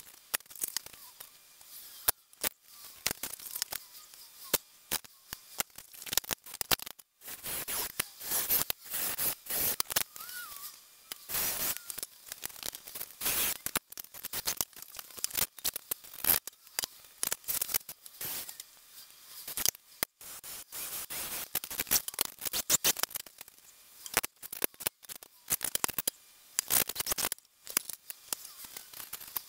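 Wooden parts of a bolted pallet-wood arm knocking, clattering and scraping as they are handled and set on a steel saw table, in irregular bursts of clicks and rubbing.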